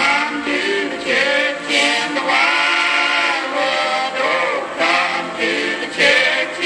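Recorded old-time Appalachian song playing: several voices singing together in harmony.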